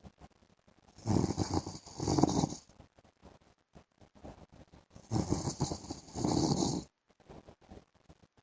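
A man snoring in his sleep: two snores about four seconds apart, each broken into two parts, with quiet breathing between them.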